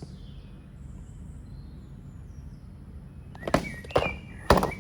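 A steady low hum, then several sharp clicks and knocks in quick succession about three and a half seconds in, from the product box being handled.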